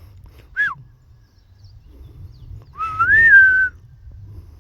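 A person whistling twice to get an animal's attention: a short falling whistle about half a second in, then a louder, longer whistle about three seconds in that rises and then levels off.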